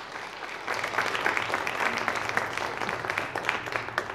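Audience applauding, a dense patter of many hands clapping that grows louder about a second in.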